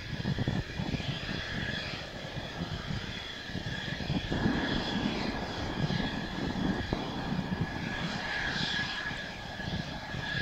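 Mitsubishi F-2B fighter's single F110 turbofan running at low taxi power: a steady high-pitched whine of several held tones over a low rumble. Wind buffets the microphone underneath.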